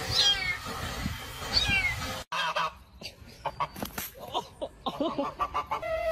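A small kitten meowing twice in a high, thin voice, each meow falling in pitch, about a second and a half apart. After the first two seconds other, unclear noises follow.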